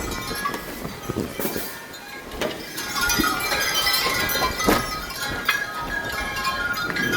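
Gusty dust-storm wind rushing over the microphone, with metallic clinking and ringing tones throughout and a few sharp knocks.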